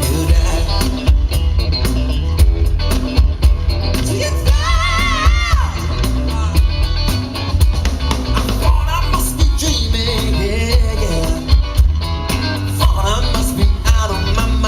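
Live band playing an upbeat rock song with heavy bass and drums and a singing voice, amplified through a PA system.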